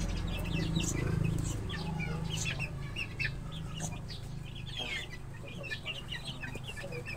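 A pen of young chickens peeping and clucking, with many short, high calls overlapping throughout.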